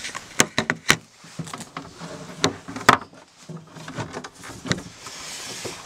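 Clicks and knocks from a timber folding dining table as its leaves are worked and lifted up on their pop-up arms, several sharp handling knocks with the loudest about three seconds in.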